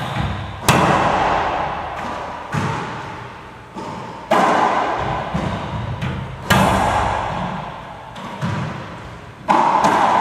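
Racquetball rally: the hard rubber ball cracking off racquets and the court walls about six times, every one to two seconds, each hit ringing out with a long echo in the enclosed court, with fainter knocks between.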